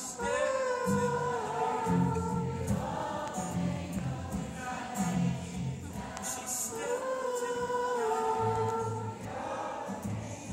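A large crowd singing a chorus together with a live acoustic guitar. There are two long sung phrases, one starting just after the beginning and one about seven seconds in, over steady low guitar notes.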